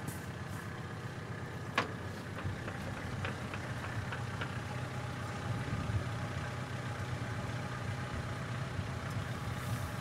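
Tractor engine idling steadily, with one sharp click about two seconds in.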